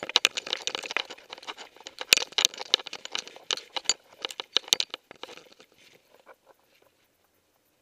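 Irregular rustling, scuffing and clicking from a dog-worn camera rubbing against the dog's fur as the dog moves about. The noise thins out and dies away about six seconds in.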